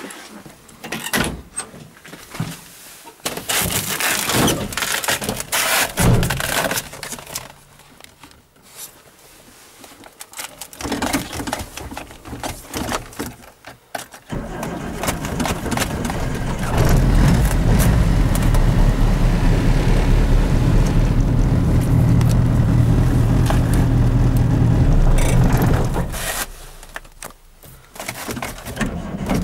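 Suzuki Samurai's 1.3-litre carburettor four-cylinder being started cold at −20 °C. After scattered clicks, knocks and scrapes of the door and someone getting in, the engine sound builds and runs loud and steady for about nine seconds, then stops, leaving the engine off.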